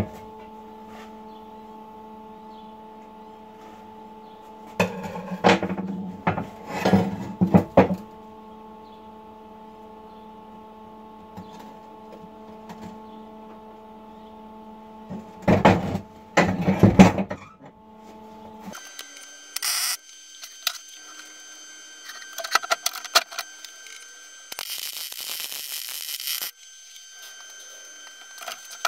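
Steel subframe and reinforcement plate being handled on a steel welding bench: two spells of irregular metal clanking and scraping over a steady electrical hum. Later the hum changes to a higher buzz, with a few knocks and a brief hiss.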